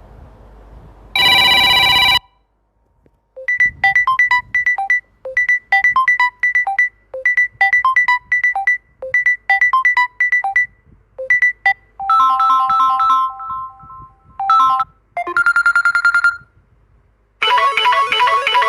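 Samsung Galaxy M31 ringtones playing one after another. A short buzzy tone comes about a second in, then a repeating run of short, high electronic notes for about eight seconds. After that, several other ringtones each sound for only a second or two before cutting off.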